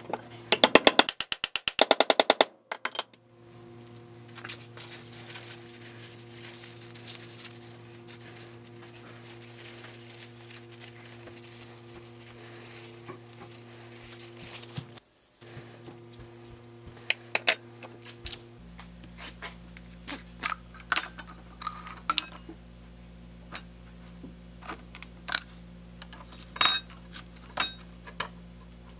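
Small metal parts and tools being handled on a workbench, clinking and tapping now and then, over a steady background hum. Near the start there is a loud, fast, even run of clicks lasting about two seconds.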